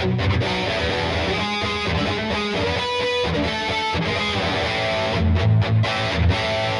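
PRS SE Custom 22 electric guitar played with a distorted tone: quick lead runs and held notes, with heavier low notes near the end.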